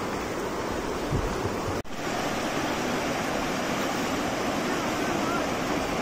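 River water rushing over rocks in shallow rapids, a steady noisy wash that drops out for an instant about two seconds in.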